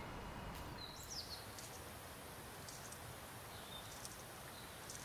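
Quiet outdoor ambience: a steady low background noise with one short bird call about a second in and a few faint high chirps later.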